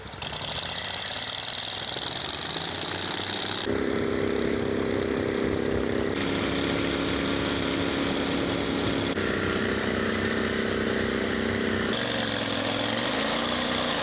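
Boat motor running, heard in a few spliced clips that change abruptly every few seconds. It holds a steady pitch at first, then near the end its pitch rises and falls repeatedly as the throttle varies.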